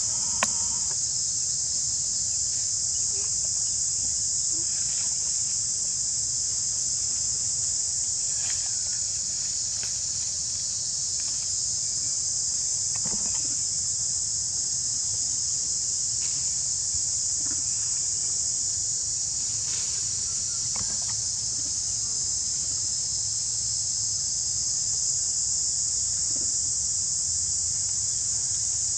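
Steady, high-pitched drone of a forest insect chorus, unbroken throughout, with a few faint brief clicks now and then.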